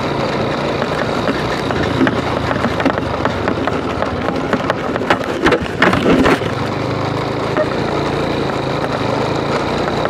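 Motorcycle engine running on the move, with steady wind and road noise. A brief clatter of knocks and rattles comes about five to six seconds in.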